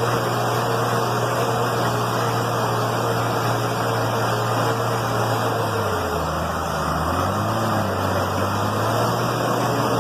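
An engine running steadily under a constant hiss; its pitch dips and rises about six seconds in, then settles again.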